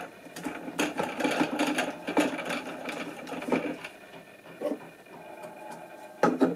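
Plastic jet tube being twisted and unscrewed from the outlet of an Oase Aquarius fountain pump: a run of rattling plastic clicks and scrapes for about three seconds, then a few softer clicks and a knock near the end.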